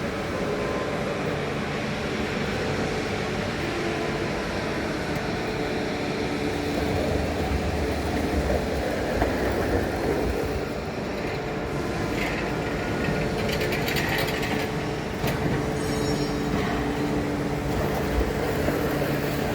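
Heavy-duty lathe running steadily as it turns a large steel part, a constant mechanical drone with a steady hum, and short clicks and rattles in the middle.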